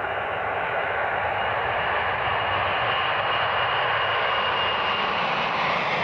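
Boeing 747's four turbofan engines at takeoff thrust through the takeoff roll and lift-off: a loud, steady jet noise with a thin high whine running through it, swelling slightly in the first second.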